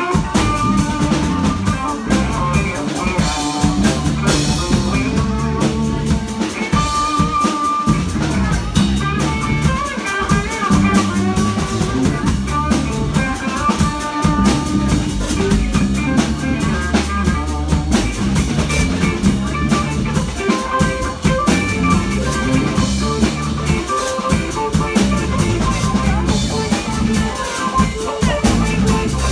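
A live band playing loud, steady rock on drum kit and guitar, with a driving beat and rimshots on the snare.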